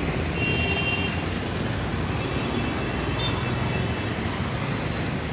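Steady street traffic noise: cars and motorbikes running along a busy city street as a continuous rumble, with a faint high tone briefly about half a second in.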